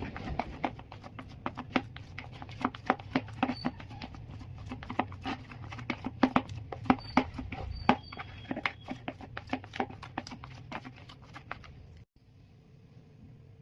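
Boiled potatoes being mashed and mixed by hand: irregular soft squelching and clicking, several times a second, stopping abruptly about twelve seconds in.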